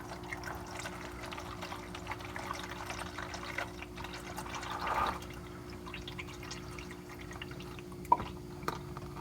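Warm used engine oil pouring and splashing from the open drain-plug hole of a VW Jetta VR6's oil pan, the stream missing the drain pan. It swells briefly about five seconds in, with a sharp tap near the end.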